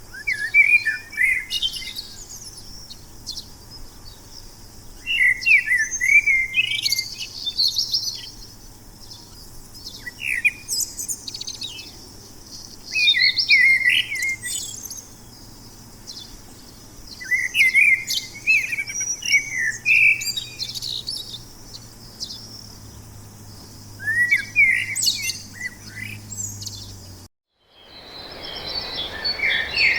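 A songbird singing short, quick warbling phrases of about two seconds each, repeated every few seconds over a faint low hum. Near the end the song cuts off, and after a brief break a different, busier birdsong recording begins.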